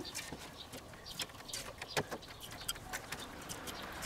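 Scattered light clicks and taps of charcoal briquettes being set down with metal tongs: glowing coals being laid at the start of a minion ring of unlit briquettes in a kettle grill.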